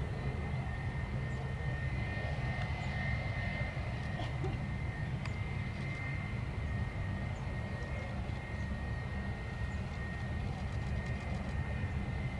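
Jet engines of a twin-engine Airbus A320-family airliner as it rolls along the runway after landing: a steady low rumble under a steady high-pitched whine.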